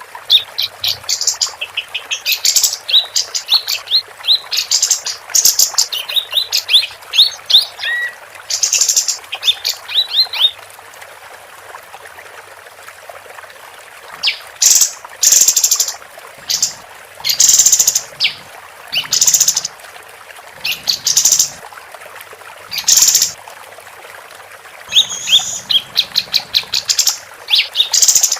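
Female kapas tembak singing: bursts of fast, high chattering and trilling notes, repeated in clusters with a few seconds' pause roughly mid-way.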